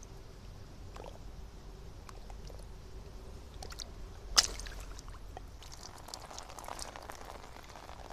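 Light water sounds, small splashes and drips, with scattered ticks and one sharp click about four and a half seconds in.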